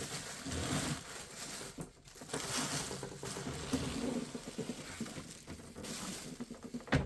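Plastic wrapping rustling and crinkling on and off as a dehumidifier is unwrapped and handled, with a few soft knocks and a louder knock near the end.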